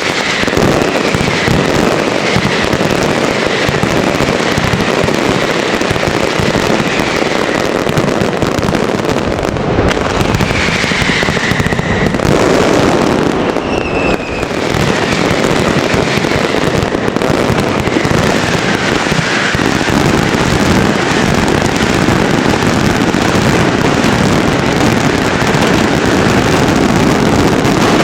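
A dense, continuous barrage of fireworks: bangs and crackling run together without a break. Several short falling whistles cut through the barrage.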